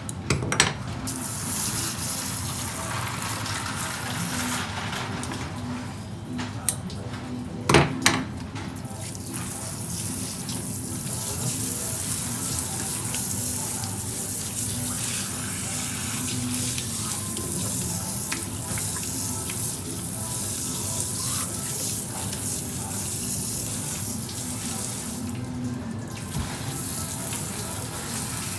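Water from a pre-rinse sprayer hose running hard onto a whole pollock and the counter, a steady hiss that takes hold about nine seconds in. There are two sharp knocks, just after the start and about eight seconds in.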